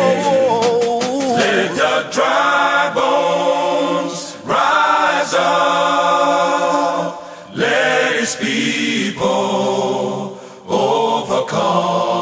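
A group of voices chanting a gospel praise song, in phrases of a few seconds with short breaks between them.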